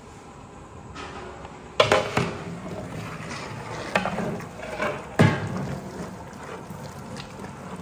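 Metal cooking utensils clanking: four sharp knocks with a brief ringing tail, the loudest just under two seconds in and again about five seconds in.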